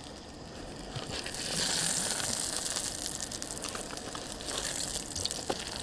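Batter and oil sizzling in a small frying pan on a canister camp stove while a spatula works under a fish pancake and folds it over. The sizzle swells about a second and a half in and then eases, with a few light clicks of the spatula.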